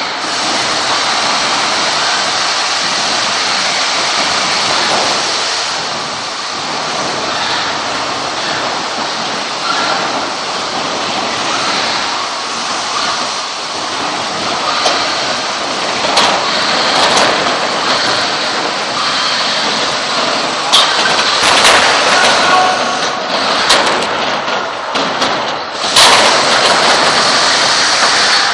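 Combat robots fighting: a loud, steady rushing noise of running machinery, broken in the second half by a string of sharp metal impacts, the hardest about 26 seconds in.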